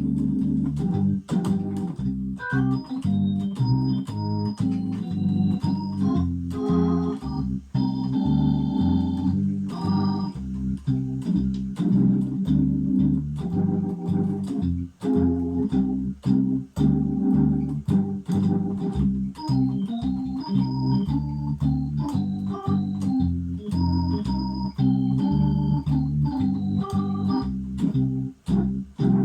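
Crumar Mojo Classic drawbar organ played through a Leslie 2103mk2 rotary speaker: sustained chords over a moving bass line, with upper notes changing every fraction of a second and short clicks at many note starts.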